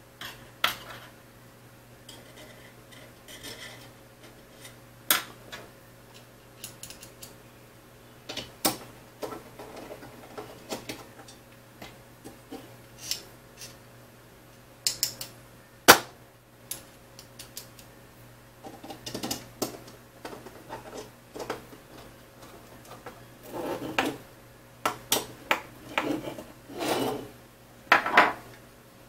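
Hand assembly with a screwdriver: M5 screws driven through a plastic bracket into T-slot nuts in an aluminium extrusion, with scattered clicks, light scraping and knocks as the extrusion and small metal parts are handled on a wooden table. One sharp knock a little past halfway, and a cluster of scraping and clicks near the end.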